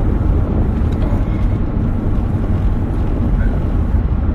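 A loud, steady low rumble of noise with no breaks.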